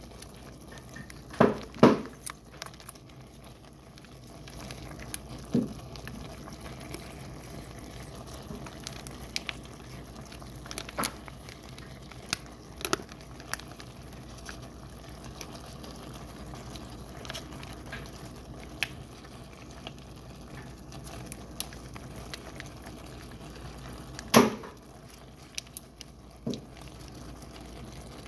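Macaroni and ground meat simmering in a skillet: a steady low bubbling, with a handful of sharp knocks, the loudest about two seconds in and again near the end.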